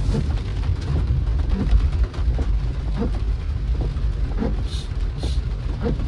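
Rain falling on a moving car, with scattered drop hits over a steady low rumble of the engine and road.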